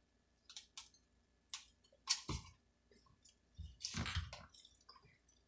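Close-up eating sounds: a scatter of small clicks and crackles, with a loud crunch about two seconds in and a longer crackling stretch around four seconds.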